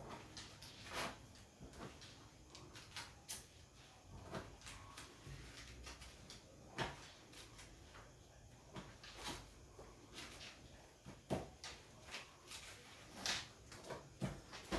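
Faint, irregular rustles and light clicks of papers and a ballpoint pen being handled on a desk while someone writes.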